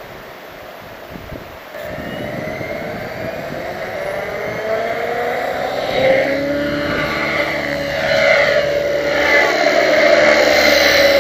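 Align T-Rex 600EFL Pro electric RC helicopter spooling up and taking off: its motor and rotor whine start about two seconds in, then rise in pitch and grow steadily louder as it lifts off and climbs.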